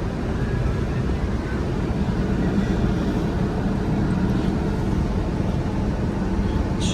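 Caterpillar 308D CR excavator's diesel engine running steadily, heard from inside the cab.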